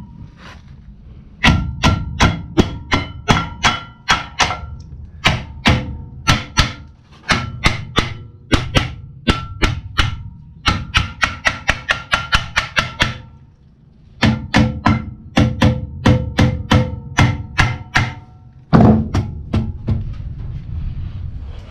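Background music with a plucked, percussive beat, a few sharp notes a second, pausing briefly twice.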